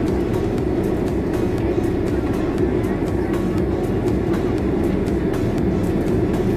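Steady cabin noise of a Boeing 767 taxiing: a constant jet-engine hum and low rumble heard from inside the passenger cabin.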